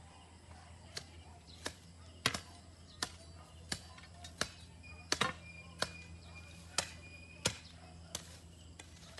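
Portable cement mixer running with a steady low hum, under a series of sharp, ringing metallic clanks about every two-thirds of a second.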